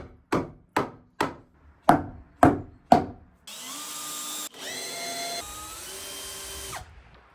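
A hammer striking a wooden door-frame support about seven times, roughly two blows a second, driving it in to straighten the frame. Then a power drill runs for about three seconds, its pitch stepping up and down with the speed, and stops near the end.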